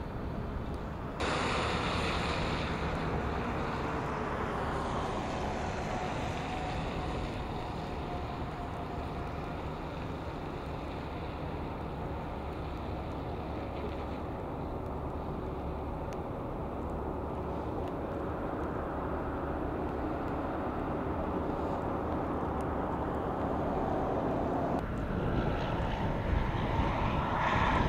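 Highway traffic on a wet road: a steady rumble of truck and car engines and tyres, with engine tones sliding in pitch as vehicles pass. Near the end the sound changes and grows louder.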